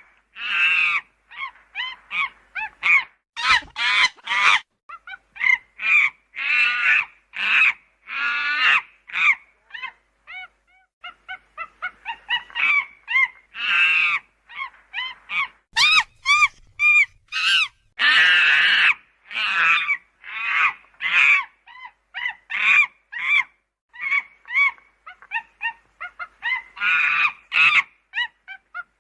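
Monkeys calling: a long run of short, high-pitched cries, some rising and falling, coming in quick strings with brief pauses.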